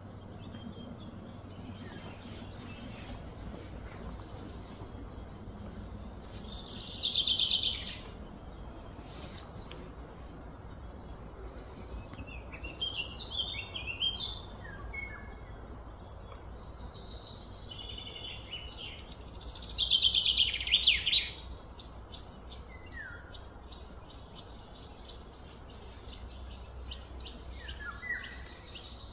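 Wild birds chirping and calling over a steady low background hum, with two louder bursts of rapid high trilling, about a quarter and two-thirds of the way through.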